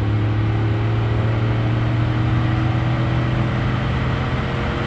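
2005 Chevrolet Silverado's L33 aluminum-block 5.3 L V8 running at a steady raised speed, easing down slightly. The engine is worn out at 338,000 miles and has a little rod knock, which the owner puts down to a broken oil pickup tube and running on low oil pressure.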